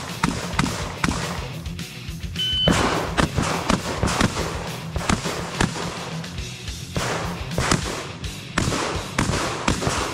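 Background music over a short shot-timer beep about two and a half seconds in, followed by runs of quick shotgun shots in rapid succession.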